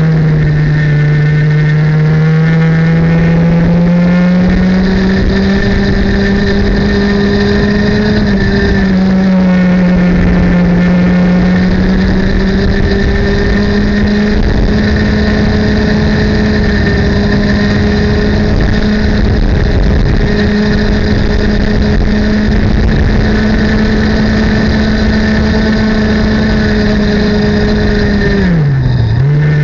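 Single-cylinder two-stroke kart engine running under load at around 12,000 rpm. Its pitch climbs slowly and holds high, dips briefly about eight seconds in, then falls sharply and picks up again near the end as the kart slows.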